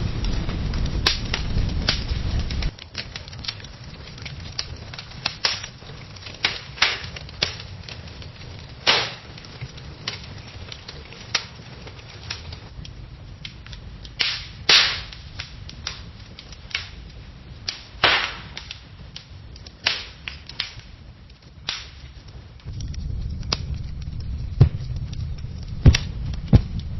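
Fire crackling, with sharp pops at irregular intervals over a faint hiss. A low rumble of flames lies under the crackles at the start and again from near the end, where the pops come louder.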